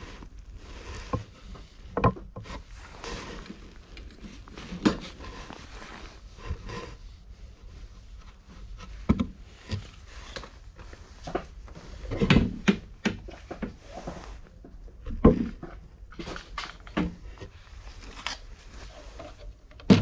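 Cats eating dry food from a metal bowl and moving about on wooden boards: scattered, irregular clicks, knocks and light scraping, with a couple of heavier thumps about twelve and fifteen seconds in.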